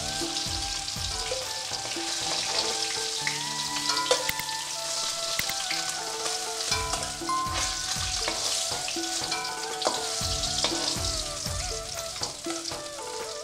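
Small hilsa pieces sizzling in hot mustard oil in a metal kadai, with a metal spatula scraping and tapping against the pan as the fried fish are lifted out.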